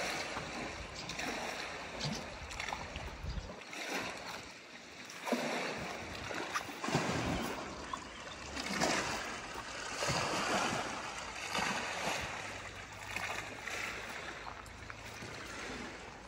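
Small lake waves lapping and splashing against a stone shore wall, in irregular washes every second or two.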